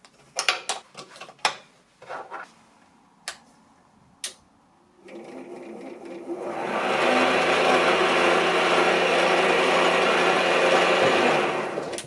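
A few light clicks and knocks as the wooden headstock cover is fitted, then the home-built mini lathe's DC motor and belt-driven spindle start about five seconds in, building over a couple of seconds to a steady whir with a low hum and easing off near the end.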